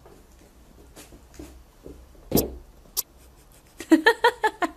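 A plastic basin knocks and scrapes on a wooden floor as a cat tips it over, with one loud thump about halfway and lighter knocks around it. Near the end comes a quick run of laughter.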